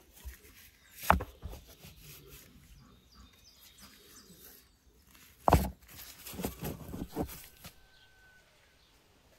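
Large stones knocked against one another as they are set into a dug earth pit: two sharp clacks about four and a half seconds apart, the second followed by a few lighter knocks.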